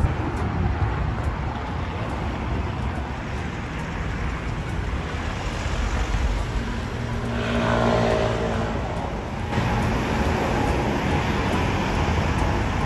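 Steady road traffic noise from a busy city street, swelling briefly around eight seconds in.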